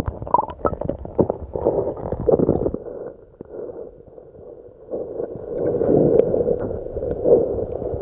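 Water heard through an underwater camera: muffled gurgling and sloshing with scattered clicks and knocks as a snorkeler moves about close to it. It drops quieter for a couple of seconds in the middle, then a louder rumbling swirl of water returns.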